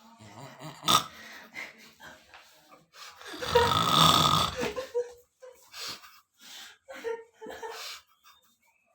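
A person snoring, with one long, loud snore about three seconds in and shorter, quieter snores around it.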